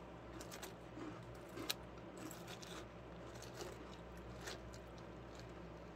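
Plastic spoon stirring and digging through cereal and milk in a plastic cup: scattered light clicks and scrapes, with one sharper click a little under two seconds in.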